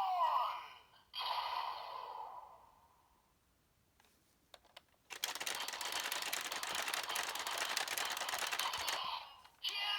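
Electronic sound effects from a Bandai Geartlinger toy blaster's small speaker. A sung jingle fades out, a few plastic clicks follow, then a rapid-fire blast effect rattles for about four seconds before another jingle begins near the end.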